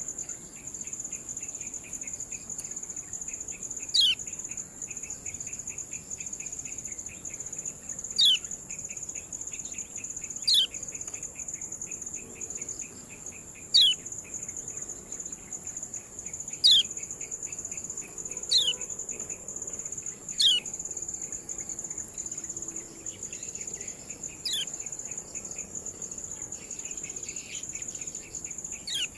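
Kecial kuning white-eye giving its sharp 'ciak' call: about nine brief, steeply falling notes spaced two to four seconds apart. Steady high insect buzzing and fast pulsing cricket chirps run underneath.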